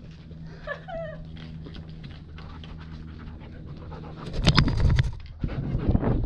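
German Shepherd panting rapidly, heard up close through a GoPro strapped to a harness on its back. About four seconds in, a burst of loud rustling and knocking as the dog moves off.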